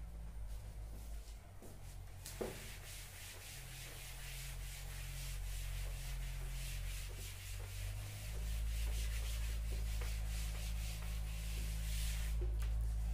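Chalkboard being wiped with an eraser in quick back-and-forth scrubbing strokes, wiping off chalk. It starts about two seconds in with a light knock and stops shortly before the end.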